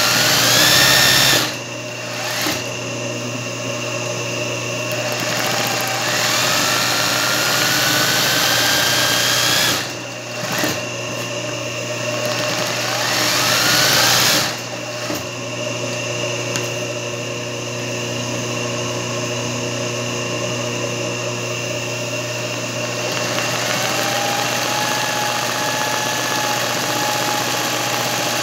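Singer 20U industrial zigzag sewing machine stitching free-motion embroidery, its motor humming steadily. The stitching speeds up with a rising whine several times and stops briefly three times, about a second and a half in, about ten seconds in and near fifteen seconds.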